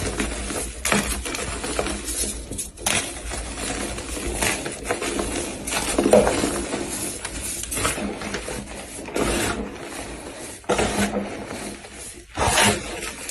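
Soft gym chalk being crushed, a crunchy crumbling crackle with a fresh crunch every second or so.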